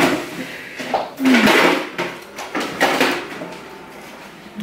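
Rustling and clattering handling noises in a few short bursts, the loudest about a second and a half in, with a brief murmur of voice.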